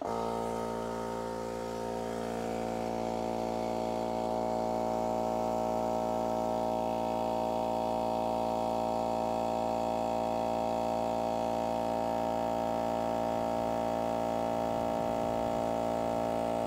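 Small 2-horsepower, 4.6-gallon twin-stack air compressor switching on and running steadily: a constant motor-and-pump drone as it builds up tank pressure.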